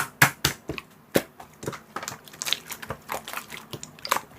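Slime being squished and worked by hand, making a run of irregular clicks and small pops, a few a second.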